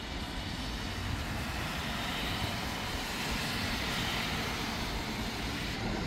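Outdoor city traffic noise: a steady low rumble with a broad hiss that swells about two seconds in and eases off near the end, like a vehicle passing.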